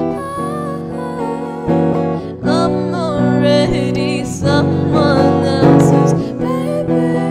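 A teenage girl singing a slow song over her own electric guitar, held chords ringing under the voice. Her singing, with vibrato, rises to its strongest from about two and a half seconds in to near the end.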